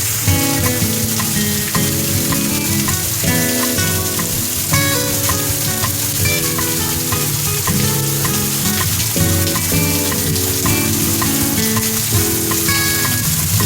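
Heavy rain falling in a steady, dense hiss, with music playing over it.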